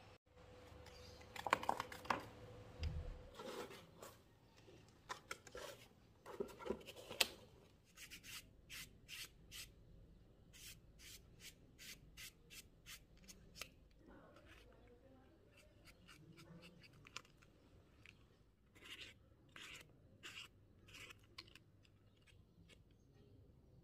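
Felt-tip marker scribbling on a paper strip in quick short strokes, about two or three a second, then quieter rubbing and rustling as the folded paper is handled.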